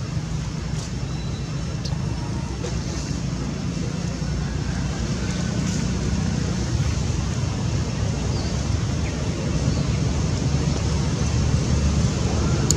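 Steady low outdoor rumble, growing slightly louder toward the end, with a few faint, brief high chirps above it.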